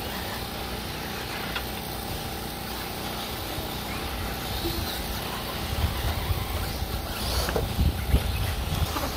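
1/8-scale electric RC buggies running laps on a dirt track. A low, uneven rumble grows louder from about halfway through.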